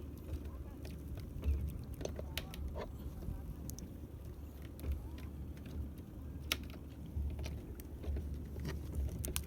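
Fishing gear being handled on a small boat: scattered light clicks and taps over a low, steady rumble.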